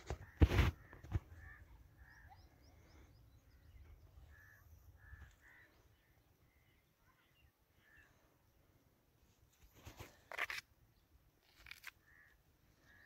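Short bird calls now and then, with a sharp knock about half a second in and another loud noise about ten seconds in.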